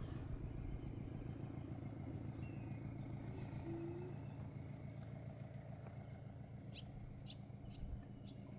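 A faint, steady low engine hum, with a few short bird chirps about seven seconds in.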